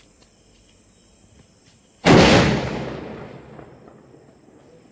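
A firecracker exploding with one loud bang about two seconds in, its echo fading away over a second or so.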